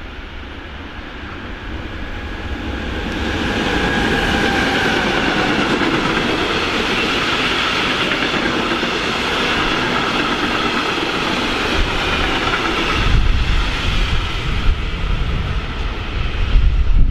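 Freight train of open goods wagons rolling past behind an electric locomotive: steady rumble and clatter of wheels on rails that swells over the first few seconds and then holds. A heavier low rumble joins about three-quarters of the way through.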